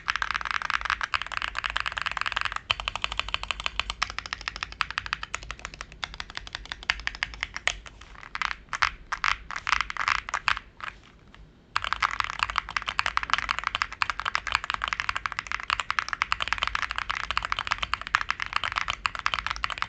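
Fast typing on a 65% mechanical keyboard with KTT Macaron Pink switches, a rapid run of key clicks. About halfway through, the strokes come slower and more separately, with a short pause before the fast typing resumes.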